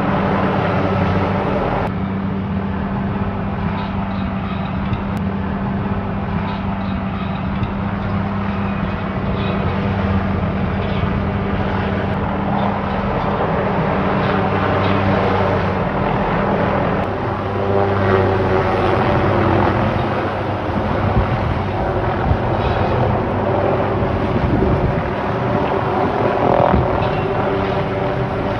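MD 500 helicopter hovering with a long aerial-saw boom slung beneath it: a steady rotor and engine drone. Its low hum changes about halfway through.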